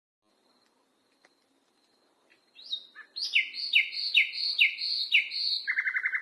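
Nightingale singing one phrase, starting about two and a half seconds in: a rising note, then a run of about six loud down-slurred notes, roughly two a second, ending in a fast rattling trill.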